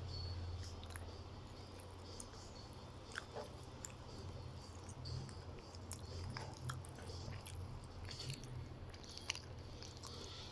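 KDK KU408 ceiling fan running with a steady low motor hum, with scattered faint clicks and crackles.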